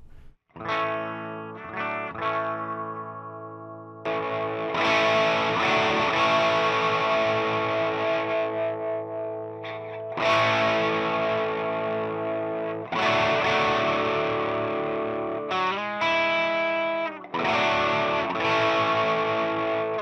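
Electric guitar played through a home-built Tube Screamer-style overdrive pedal with its gain turned up, into a Marshall valve amp: a few ringing chords at first, then louder, sustained distorted chords from about four seconds in, with short breaks between phrases.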